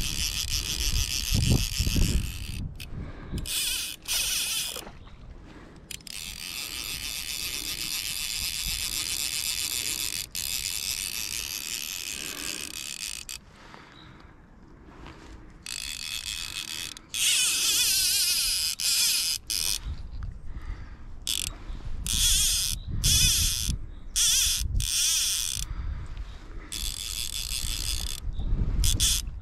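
Fly reel's ratchet drag rattling in long runs, broken by short pauses, as a big rainbow trout pulls line off the reel.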